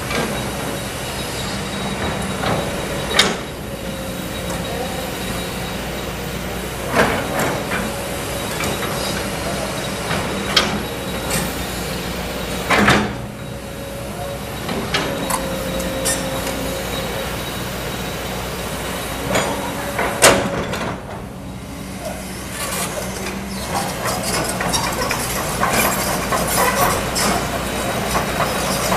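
Kobelco SK200 hydraulic excavator digging: its diesel engine and hydraulics running steadily under load, with about five sharp metallic clanks and knocks from the bucket and boom as it works the soil.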